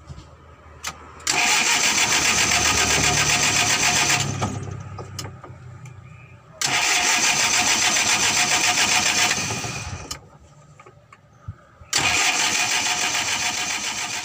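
Overhauled Mitsubishi L300 four-cylinder diesel engine being cranked on its starter motor in three tries of about three seconds each, with short pauses between, as it is started with air just bled from the injector lines.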